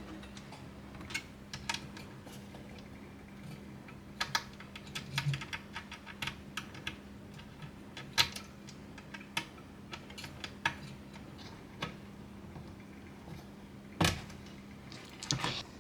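Irregular light clicks and taps of small computer parts and hardware being handled and fitted during a PC build. A louder cluster of knocks comes near the end, over a faint steady hum.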